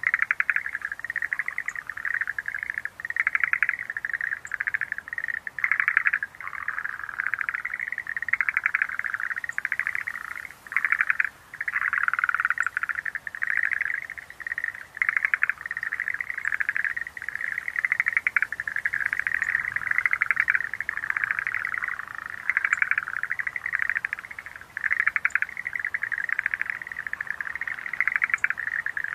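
Chorus of Schlegel's green tree frogs calling, many overlapping rapid pulsed trills that run on almost without a break, with a brief lull a little over ten seconds in. Faint short high ticks sound every couple of seconds.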